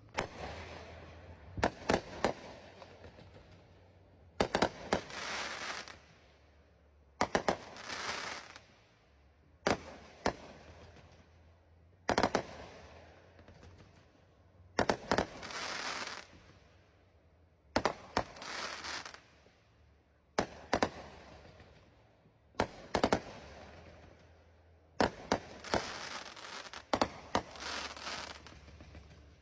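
Fireworks show, with shells bursting in sharp bangs every two to three seconds, some coming in quick pairs or triples, each trailing off over about a second.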